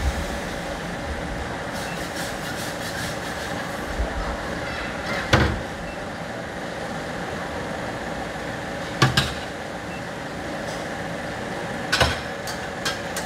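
Steady background hum of a crepe stall, with a few sharp metal knocks and clinks of a scraper and utensils against the round crepe griddle and steel containers, three of them louder and spread a few seconds apart.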